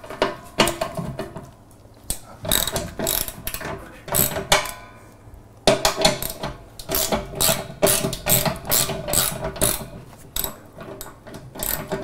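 Hand ratchet wrench clicking as it turns a bolt on a washing machine's outer tub flange, in several runs of quick clicks with short pauses between.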